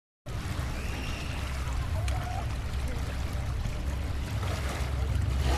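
Steady rushing noise like flowing water, with a low rumble underneath, starting just after a moment of silence.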